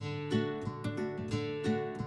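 Intro music: acoustic guitar strummed in a steady rhythm, a fresh chord stroke about every third of a second.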